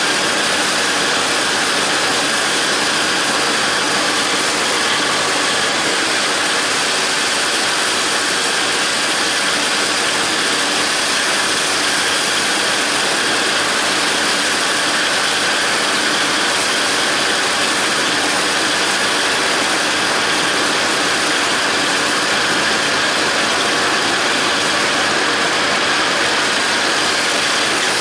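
John Deere 5320 tractor's diesel engine running under load while the John Deere 270 disc mower's cutterbar spins and cuts standing grass: a loud, steady mechanical running sound with gear noise that does not change.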